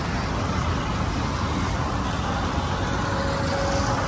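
Battered green chillies (mirchi bhajji) sizzling as they deep-fry in a large iron kadai of hot oil, a steady frying hiss over a constant low rumble.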